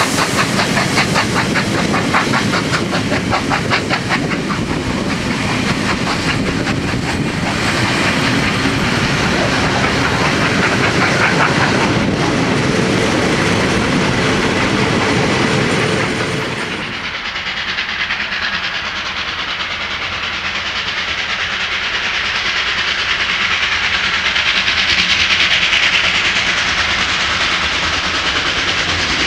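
Steam-hauled train passing, its carriages and tank wagon rolling by with a rapid wheel clickety-clack and steam hissing. About 17 s in, this gives way to a steady hiss from a steam locomotive working in the distance, growing a little louder as it approaches.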